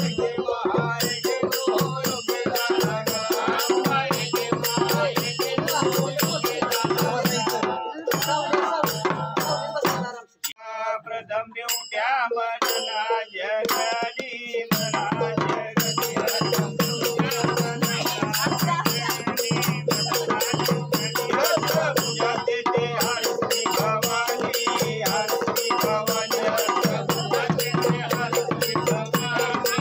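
Marathi Gondhal folk devotional music with fast, steady rattling percussion over a drum, dropping out briefly about ten seconds in and resuming about five seconds later.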